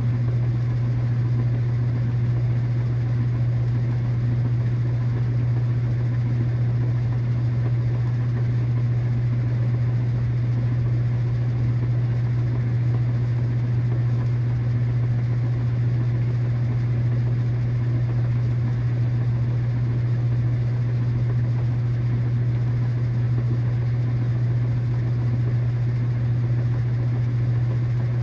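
KitchenAid washing machine running with a steady low motor hum that holds unchanged, with no rhythm or pauses.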